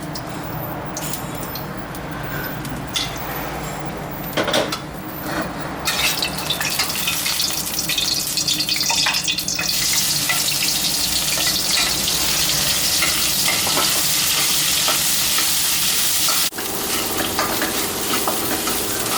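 Red curry paste frying in hot oil in a pan, sizzling while a spatula stirs and scrapes it. The sizzle grows much louder about six seconds in and stays steady.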